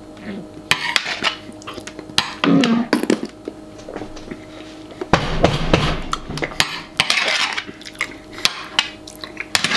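Metal spoon clinking and scraping against a metal baking sheet as congealed nacho cheese is scooped up, in quick irregular clicks. Mixed in are eating noises of cheese being gulped down, thickest about five seconds in.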